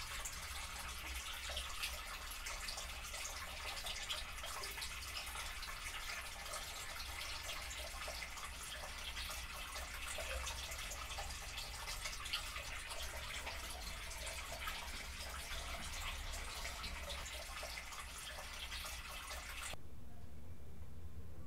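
Water running and spattering in a small tiled bathroom: a steady hiss of falling drops. It cuts off suddenly near the end, leaving a low steady hum.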